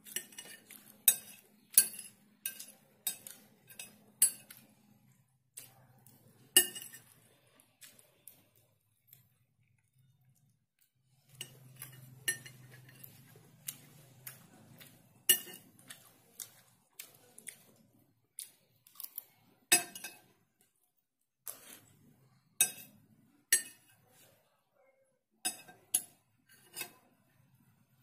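Metal fork and spoon clinking and scraping against a ceramic plate while rice and egg are scooped up: a run of sharp, separate clinks with a lull of a few seconds about a third of the way in.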